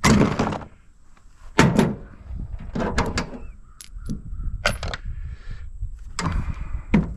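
Metal parts of an air-conditioning unit clanking and knocking as it is pulled apart for scrap: a string of sharp clatters and knocks, the loudest right at the start, some with a short metallic ring.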